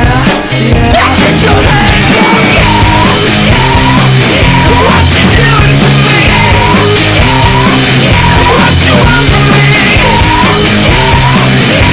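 Loud background music with a steady beat and a short high figure repeating about every two-thirds of a second.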